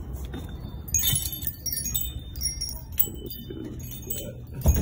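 Small bells on a glass entrance door jingling and tinkling as the door is pulled open and swings, with one dull thump near the end.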